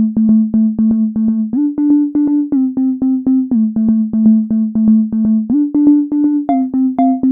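Background music: a synthesizer keyboard playing quick repeated short notes, about five a second, over a held low note that steps between two pitches.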